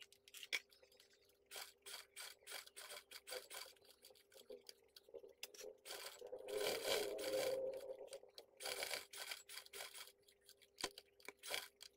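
Sewing machine stitching through leather, the needle clicking in uneven runs over a steady hum, with a louder stretch about six to eight seconds in.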